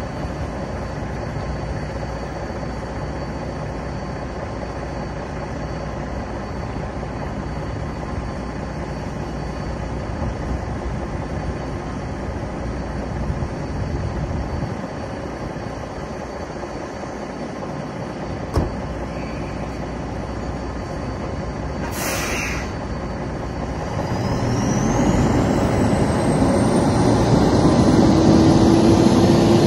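Semi-truck's diesel engine running steadily, with a short hiss of air about two-thirds of the way through. Then the engine pulls harder and grows louder as the tractor-trailer moves off, with a high whine rising in pitch.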